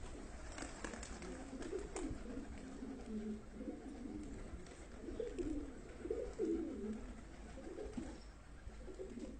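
Domestic pigeons cooing, several low warbling coos overlapping throughout, with a few sharp clicks in the first two seconds.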